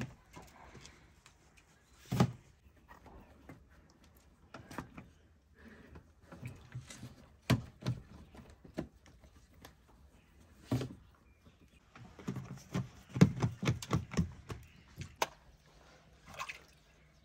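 Scattered thumps, taps and handling noises of bakers working round flatbread dough at a large clay tandoor, with a quick run of thuds about 13 seconds in.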